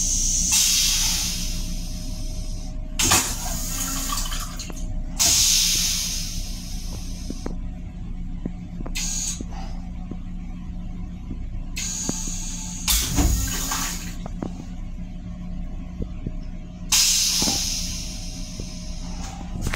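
M7 railcar's stainless-steel toilet flushing: about six bursts of hissing rinse spray, each a second or two long, over a steady low hum, with a couple of sharp knocks.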